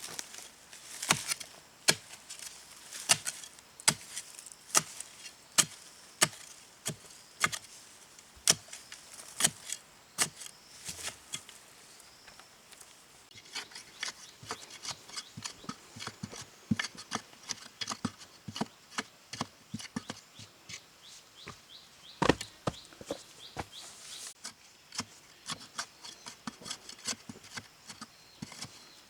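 Hand work with repeated sharp knocks or strikes, about one a second at first, then lighter, quicker tapping through the second half, with one heavier knock partway through.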